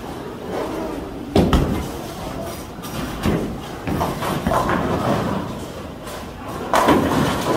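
Bowling pins crashing and balls knocking, the loudest crash about a second and a half in and another near the end, with lighter knocks between, over the steady din of a bowling hall.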